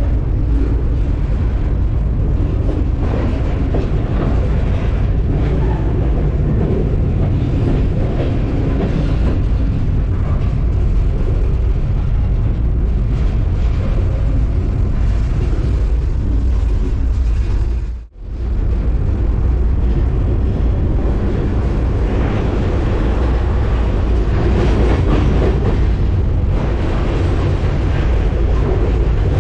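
Freight train on the move, heard from aboard: a loud, steady low rumble and rattle of the cars. The sound drops out for a split second about 18 seconds in, then resumes unchanged.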